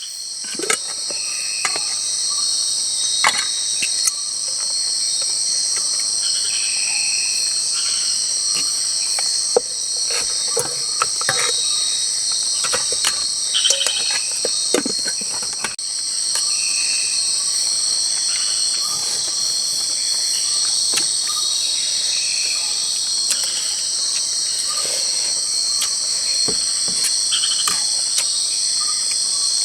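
Dense chorus of forest insects at dusk, a steady high buzzing, with short repeated chirps and scattered light clicks and knocks.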